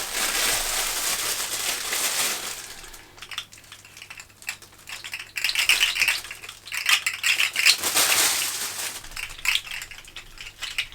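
Plastic snake fidget toy, first a rustle as it comes out of its packaging, then its jointed segments clicking and rattling against each other in quick clusters as it is twisted and wiggled.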